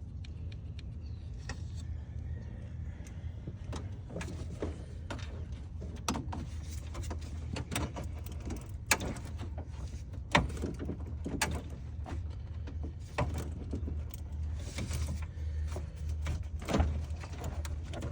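Scattered clicks and knocks of hand tools working on parts in a car's engine bay, a few of them sharp, over a steady low hum.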